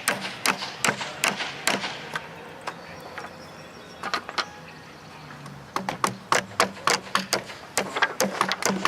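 Repeated sharp knocks, two to three a second, from work on building fireworks mortar pods. They pause for a couple of seconds midway, over a faint low steady hum.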